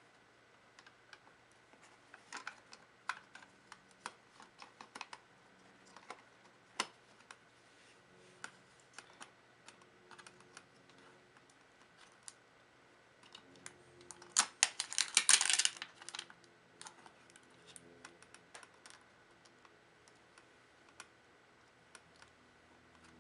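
Light clicks and taps of a laptop's hard drive and internal parts being handled and fitted back into place. They are scattered throughout, with a quick dense clatter of clicks about 14 to 16 seconds in.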